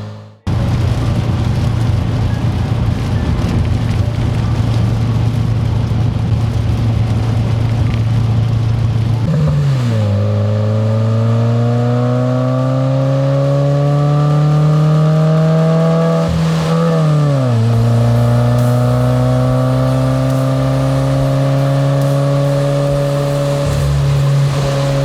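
2021 Subaru WRX's turbocharged flat-four engine pulling through the gears: its note climbs slowly and drops sharply twice, about ten and seventeen seconds in, at the upshifts.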